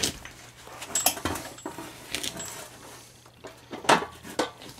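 Scattered metal clinks and knocks, about half a dozen, as bolts and hardware are worked against a pressure washer pump and engine mounting plate; the loudest knock comes near the end.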